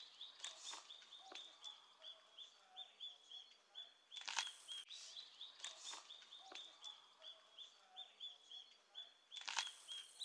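Faint high-pitched chirps from an animal, repeating steadily about three to four times a second. Two brief louder noises come about four and nine and a half seconds in.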